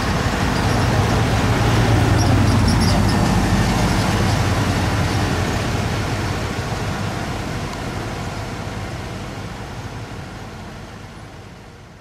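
Engine of a Chevy Silverado 3500 ambulance pulling away, a steady hum that is loudest about two seconds in and then slowly fades as it drives off.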